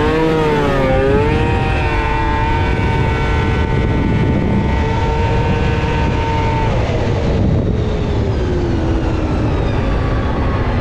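2000 Yamaha SXR 700 snowmobile's three-cylinder two-stroke engine revving in quick blips, then held at a steady high pitch for several seconds before the pitch slowly falls away near the end.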